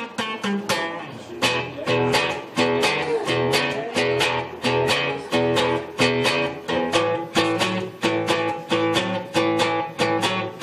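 Cutaway acoustic guitar strummed in a steady rhythm of chords: the instrumental intro of a song, with no singing yet.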